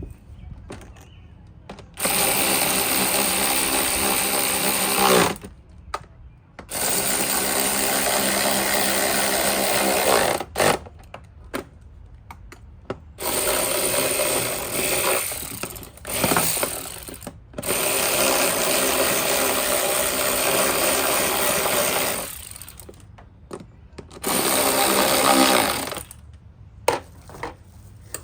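Power drill running in repeated bursts of a few seconds each, about six in all with short pauses between, driving in the screws that hold the air filter box cover on.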